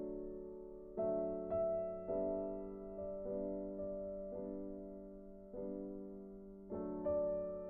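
Soft background piano music, slow chords struck about once a second and left to ring and fade.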